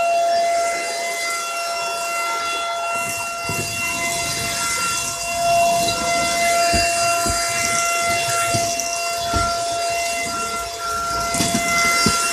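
Dirt Devil Power Stick 4-in-1 stick vacuum running, its motor giving a steady high whine over a hiss of rushing air, with irregular low knocks and bumps as it is worked over the floor.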